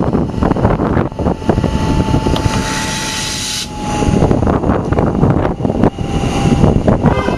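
Comeng electric train at the platform: a hiss of air from about two seconds in cuts off suddenly as the pneumatic doors close, then the train starts off with a steady whine over rumble and wind on the microphone.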